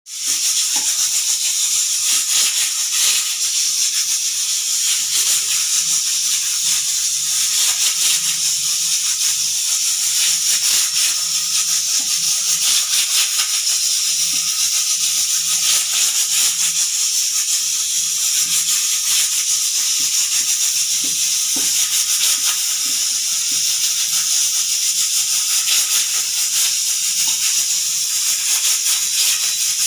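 Pressure cooker venting steam through its whistle weight: a loud, steady, high hiss with a fast rattle that keeps on unbroken.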